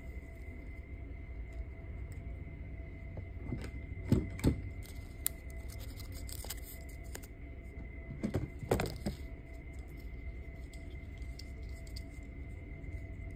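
Hands handling jewelry-making supplies: short rustles and light metallic clinks in two brief clusters, about four seconds in and again near nine seconds, over a steady low hum with a faint high tone.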